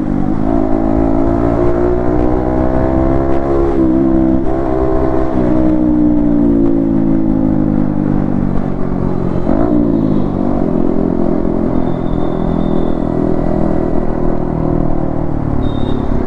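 Yamaha MT-15 V2's single-cylinder engine through an Akrapovic exhaust, running under way. The pitch drifts up and down with the throttle, with quick dips in revs around four seconds in, again a second later, and near ten seconds.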